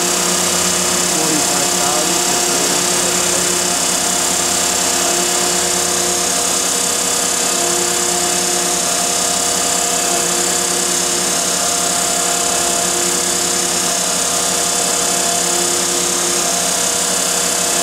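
1952 Heald 271 Size-Matic internal grinder running in its automatic grinding cycle: a steady high hiss and whine from the high-speed grinding spindle over motor hum, with one tone dropping in and out every second or two.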